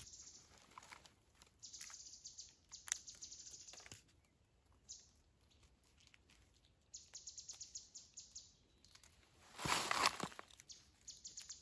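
Faint, rapid high-pitched chirping trills, repeating in bursts of about a second each, several times over. About ten seconds in there is a short, louder crunching rustle.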